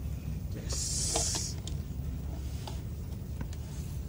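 Handling noise from a plastic desk fan being turned in the hands: a short hissing scrape about a second in, then a few light clicks and knocks, over a steady low hum.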